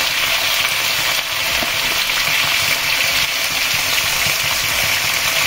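Potato chunks and pointed gourd (potala) pieces frying in hot oil in a wok, with a steady sizzle.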